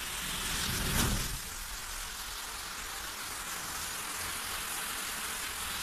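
Massed matchsticks flaring and burning together: a steady crackling hiss, swelling about a second in.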